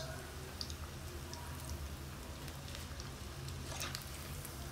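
Breadcrumb-coated chicken cutlets frying in hot oil in a small pan: a steady sizzle with scattered small crackles and pops.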